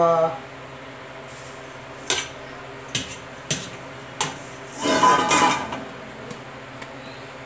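Stainless steel bowl and kitchen utensils handled on a counter: a few separate sharp metal clinks and knocks, then a longer clatter about five seconds in, and a couple of small ticks.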